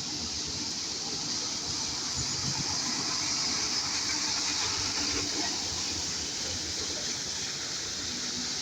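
Steady rushing noise of road traffic with a low rumble, swelling slightly a few seconds in.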